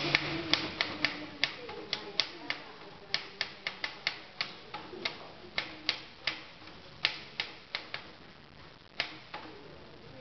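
Typewriter keys struck one at a time at an uneven pace, a few strokes a second, each a sharp clack, with a short pause near the end before two last strokes.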